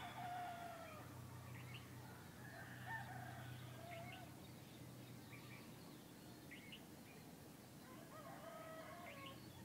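Faint rooster crowing: one crow right at the start, another about three seconds in and a third near the end, each held and then falling away. Short high bird chirps come and go over a steady low hum.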